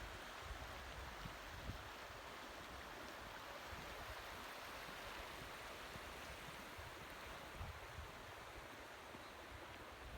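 Faint, steady rush of a flowing stream, with low wind rumble on the microphone.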